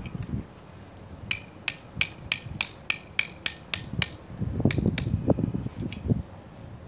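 About ten quick metal-on-metal strikes, roughly three a second, as a hatchet hammers the back of a blade set in a stick, batoning the stick apart. Then a couple of seconds of low rustling and handling noise.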